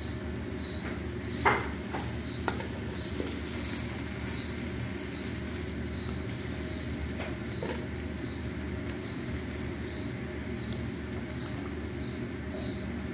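Chicken frying in oil in a pan on a gas burner: a steady low rush with light sizzling, and metal tongs knocking against the pan, loudest about a second and a half in, with a few lighter clicks later. A high, regular chirp repeats about every two-thirds of a second throughout.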